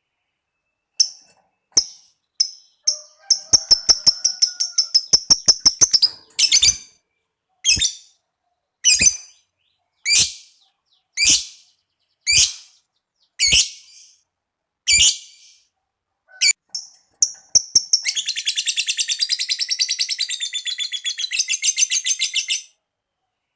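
Lovebird calling: a few sharp chips and a fast run of ticking notes (ngetik), then a string of single shrill calls about one a second. Near the end comes one long, rapid chattering trill lasting several seconds (ngekek).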